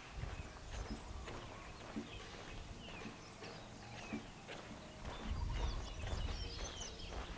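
Footsteps walking on a concrete driveway, a regular series of short knocks, with high brief chirps in the background and a stretch of low rumble about five seconds in.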